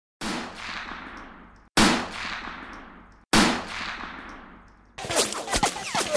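Three single gunshots about a second and a half apart, each with a long echoing tail that is cut off sharply as the next begins. They are followed by a quick clatter of sharp metallic clicks and knocks that ends in a short falling whine.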